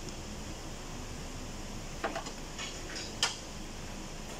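Metal hand tools clinking: a few short, sharp clicks and taps in the second half, the loudest about three and a quarter seconds in, over a steady background hum.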